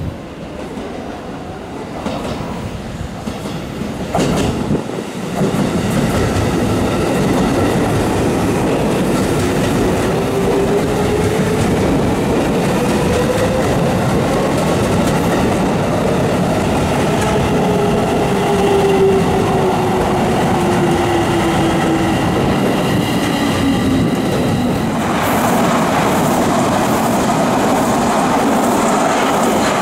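Electric commuter trains running past: steady wheel-on-rail noise with a traction-motor whine that glides up and then down in pitch. About 25 seconds in the sound changes abruptly to an Odakyu 60000 series MSE limited express passing.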